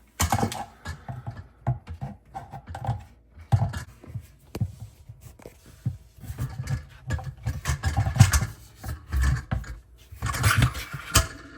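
Plastic dishwasher parts being handled and pushed back into place: an irregular run of sharp clicks, knocks and scrapes, busiest near the end.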